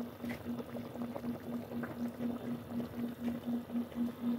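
Chicken adobo simmering in its sauce in a metal pot, bubbling with a dense crackle of small pops. Underneath runs a low hum that pulses about three times a second.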